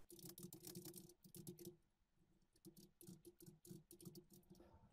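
Faint typing on a computer keyboard: quick, irregular key clicks, with a short pause about two seconds in.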